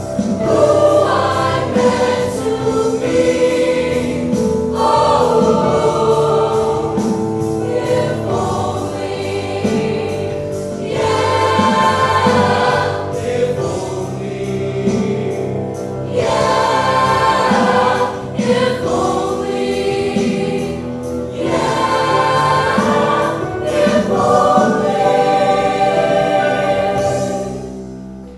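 A large high school show choir singing in harmony with a backing band. The music stops near the end.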